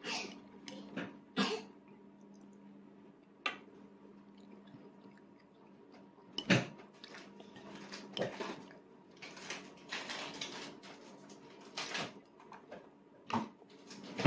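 Scattered light clicks and taps of a toddler's spoon and training chopsticks against a divided plastic dinner plate while eating, over a steady low hum.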